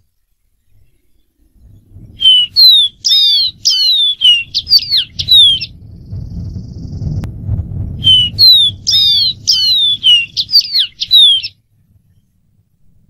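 Dark-throated seedeater singing: two phrases of quick, clear whistled notes, many of them sliding downward, each phrase lasting about three and a half seconds. A faint low rumble sits between the phrases.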